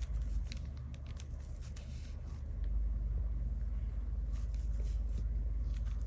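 Faint brush strokes and light taps of a Chinese painting brush on sized xuan paper, a few soft scattered ticks and rustles, over a steady low hum.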